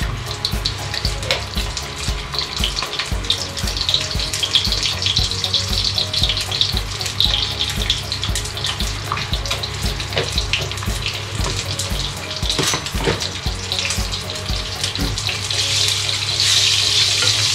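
Water running from a kitchen tap into a sink, a steady hiss that grows louder near the end.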